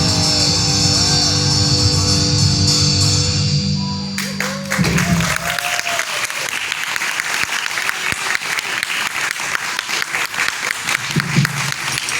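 A live band plays the last chord of a song, which rings out and stops about four seconds in, and the audience breaks into applause that continues to the end.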